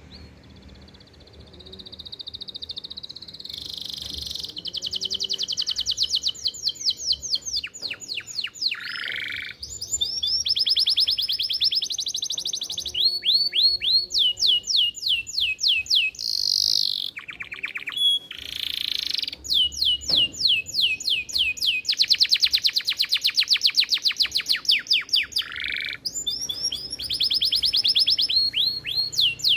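Canary singing a long, unbroken song of rolling trills: runs of rapid, evenly repeated high notes that change to a new trill every second or two. It starts faint and grows louder over the first few seconds.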